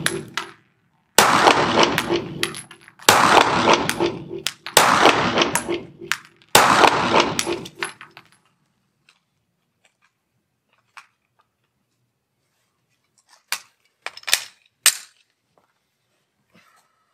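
Four shots from a CZ P-10 F pistol, about one and a half to two seconds apart, each echoing off the walls of an indoor range. Near the end come a few short metallic clicks as the pistol is handled.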